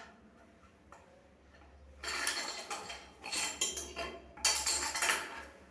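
Basin waste fitting being worked into a washbasin's outlet, clinking and scraping against the basin in three stretches starting about two seconds in.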